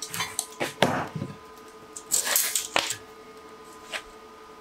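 Steel tape measure being worked across a metal frame: irregular clicks and short rattling bursts as the blade is pulled out, moved and let back, over a faint steady hum.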